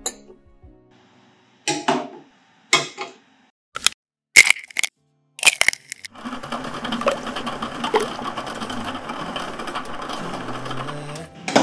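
Small glass tumblers set down on a wooden counter and an egg cracked into a glass: a handful of short, sharp knocks and cracks over the first six seconds. Then a steady rushing noise from a lidded pot of water heating on the stove.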